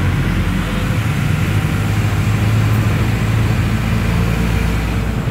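Steady running noise of a moving road vehicle heard from inside it: a low engine drone under road and air rush.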